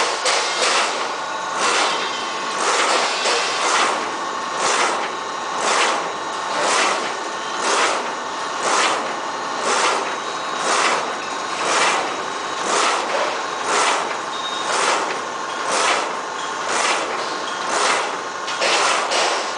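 Automatic flatbed die-cutting machine running on corrugated board, cycling about once a second: a regular sharp stroke each cycle over a steady hum.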